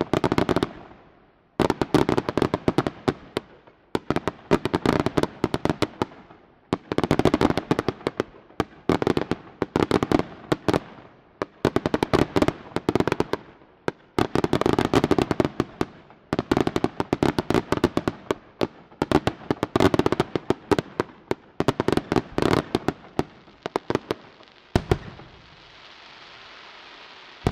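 Aerial fireworks display: repeated volleys of rapid, sharp cracking reports, each volley lasting about a second and coming roughly every two seconds. Near the end comes a single bang, followed by a steady hiss.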